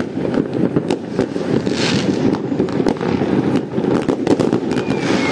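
New Year's Eve fireworks and firecrackers going off all around: a dense, unbroken crackle with many sharp bangs. Near the end a thin whistle starts, sliding slowly down in pitch.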